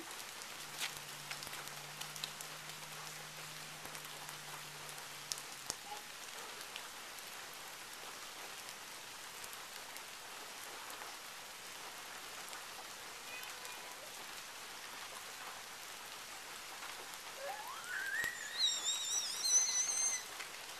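Steady rain falling on the pavement and lawn, with a few scattered drips. Near the end a young child lets out several high-pitched, rising squeals.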